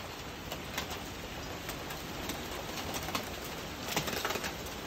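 Steady rain hiss with scattered drips ticking on nearby surfaces, a little busier about four seconds in.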